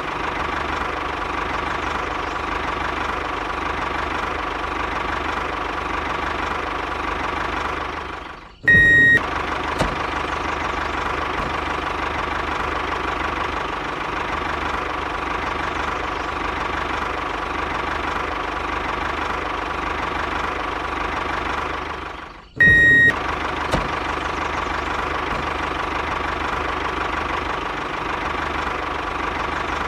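Steady running of a small motor with a constant whine. Twice, about nine and twenty-three seconds in, the running sound drops out briefly and a short, loud beep sounds.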